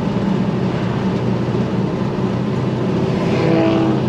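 International 4600 dump truck's naturally aspirated 7.3 IDI V8 diesel running with a steady, low drone, heard from inside the cab. A brief higher tone sounds about three and a half seconds in.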